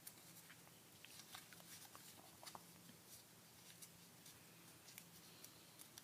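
Faint scattered crinkles and soft clicks of a sheet of origami paper being folded and creased by hand, over a faint steady hum.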